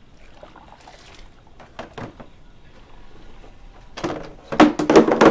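A glass measuring pitcher scooping hot water, about 200 degrees, out of a plastic water cooler, with loud splashing and sloshing starting about four seconds in. This is hot water being drawn for a mash-out. A couple of light knocks come earlier, about two seconds in.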